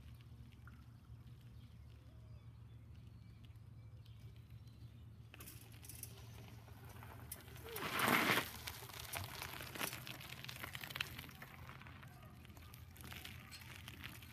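Bicycle tyres crunching over loose gravel as the rider approaches, loudest as the bike passes close about eight seconds in, then fading into scattered crackles.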